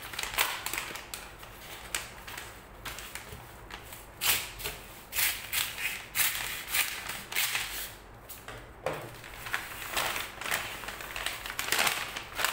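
Brown paper mailer envelope being cut open with a knife and handled: stiff paper crinkling and rustling in irregular bursts.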